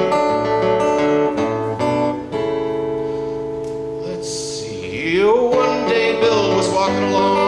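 Steel-string acoustic guitar strummed between sung lines of a folk song. A chord is left ringing for a couple of seconds, then the strumming picks up again as a man's singing voice comes back in about five seconds in.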